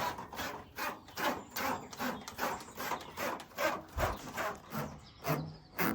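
Draw tape being pushed through the van's ceiling cavity, scraping in short repeated strokes at about three a second.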